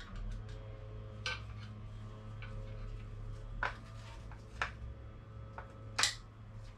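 Scattered, irregular metallic clicks and clinks of hand tools working on a bicycle crank, the loudest about six seconds in, over a steady low hum.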